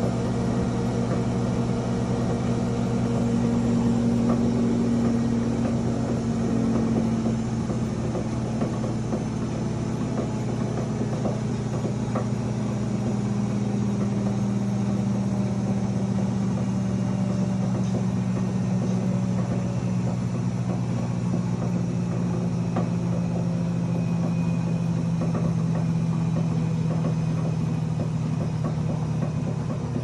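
GE Profile UltraFast combo washer-dryer spinning: a steady motor hum whose pitch slowly falls, with scattered sharp knocks throughout. The knocking comes at high spin, and the owner is unsure whether it is normal.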